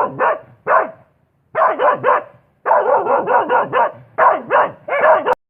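Dog barking: a rapid string of short barks in quick runs, with a brief pause about a second in.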